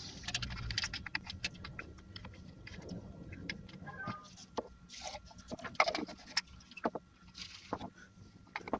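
Light clicks, taps and scrapes of a spray gun's paint cup and a wooden stirring stick being handled on a workbench as leftover paint is tipped out of the cup, with a few brief scraping rasps.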